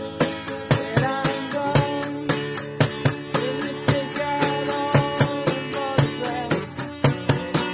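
Acoustic guitar strummed with a homemade drum kit of plastic buckets, containers and a cymbal keeping a steady beat, and a boy singing the melody over them; the singing drops out near the end.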